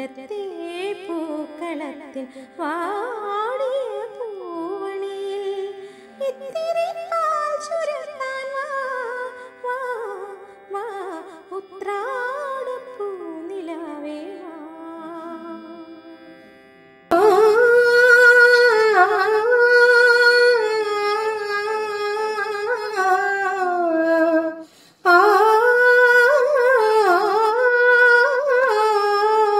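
Background music: a wordless, humming-like vocal melody in a Carnatic style. About halfway through it cuts abruptly to a louder section of the melody, with a brief break a few seconds before the end.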